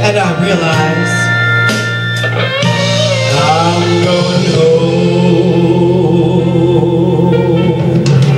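A woman singing live into a handheld microphone over loud backing music, gliding up into one long held note with vibrato in the second half.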